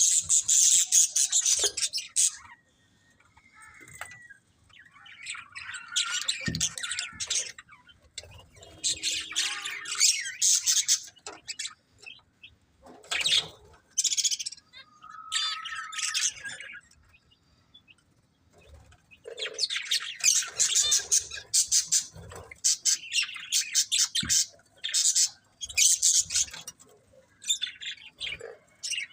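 Budgerigars chattering and chirping in quick, high-pitched bouts of a few seconds each, with short pauses between.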